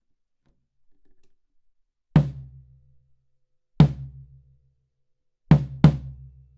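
Tom drums on a drum kit struck four times: two single hits about a second and a half apart, then a quick pair. Each hit leaves a low ringing tone that dies away over about a second.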